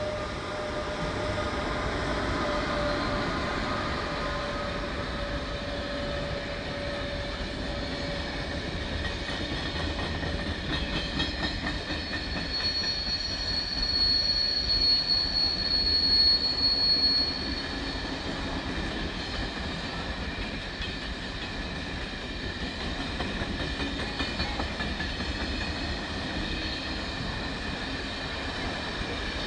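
VR Sr1 electric locomotive hauling a freight train past. A steady whine fades over the first several seconds. Then come wheel clatter and a high steady wheel squeal in the middle, the loudest part, before the wagons roll on more quietly.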